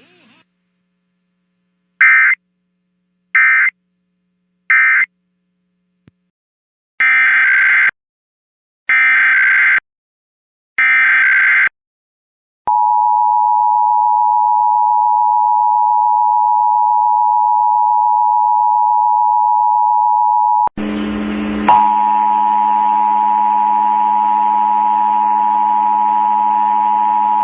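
Emergency Alert System tones: three short SAME digital data bursts, the end-of-message code, then three longer SAME header bursts, then the steady two-tone EAS attention signal held for about fifteen seconds. A low hum and hiss come in under the attention signal about two-thirds of the way through.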